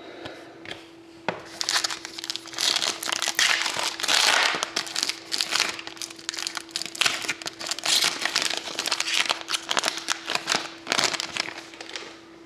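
The shiny foil wrapper of an Upper Deck Black Diamond hockey card pack is torn open and crinkled by hand. It makes a dense crackling rustle that starts about a second in and stops shortly before the end.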